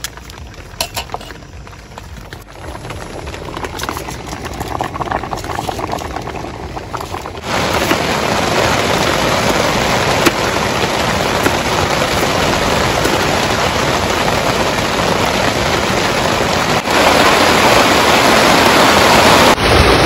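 Heavy rain pouring down steadily, with no pitched sound in it. It grows louder, jumping up sharply about seven seconds in and again near the end. A few light clicks come in the first second or so.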